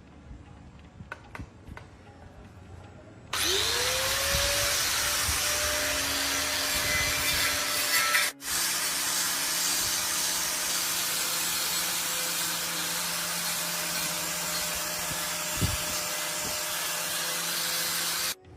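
An electric motor starts suddenly about three seconds in. Its pitch rises quickly as it spins up, and then it runs steadily with a loud rushing, grinding noise. The noise breaks off for an instant midway and stops abruptly near the end.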